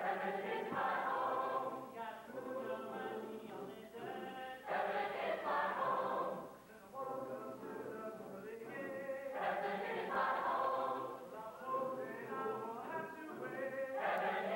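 Mixed-voice high school choir singing in harmony, phrase after phrase with brief dips between them. The recording is from old VHS tape, dull in the highs.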